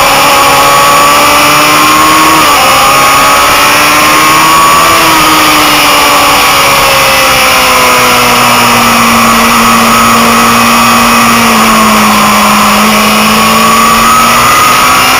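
Motorcycle engine running at speed, heard from an onboard camera through heavy wind noise. The revs climb over the first few seconds with a short dip about two and a half seconds in, then sag slowly and hold lower for several seconds before rising again near the end.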